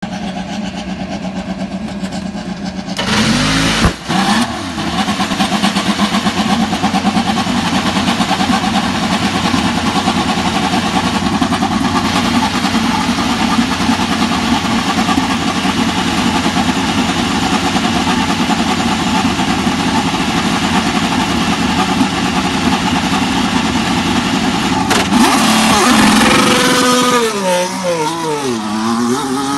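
An IndyCar's twin-turbo Chevrolet V6 being started, catching about three seconds in, then running at a steady idle for some twenty seconds. Near the end it revs up and down as the car pulls away.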